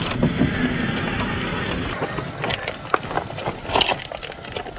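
Loose river stones clicking and knocking under the tyres of a 1/8-scale RC crawler truck, with wind noise on the microphone. A steady rushing noise fills the first couple of seconds, then scattered sharp clicks follow.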